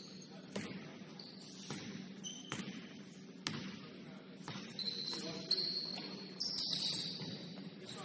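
A basketball bouncing on a hardwood gym floor about once a second, with sneakers squeaking on the court. The squeaks come thicker in the second half.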